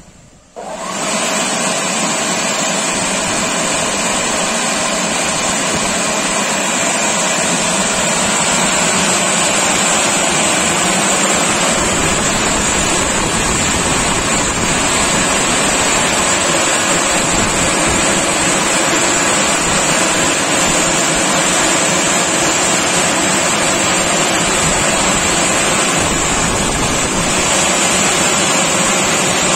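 Twin dryer blower fans of a touchless car wash starting abruptly about half a second in, then running steadily: a loud, even rush of air with a few constant tones in it.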